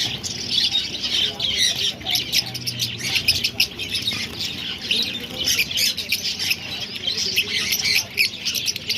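A crowd of caged birds, parrots among them, squawking and chirping all at once in a dense, unbroken din of short overlapping calls.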